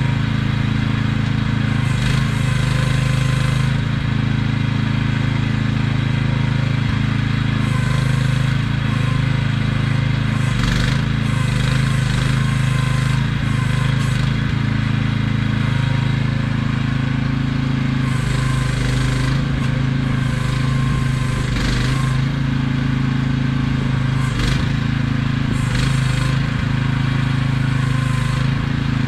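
AGT QH12R mini excavator running steadily while being worked, its small engine droning without a break, with short bursts of noisier sound from the machine every few seconds.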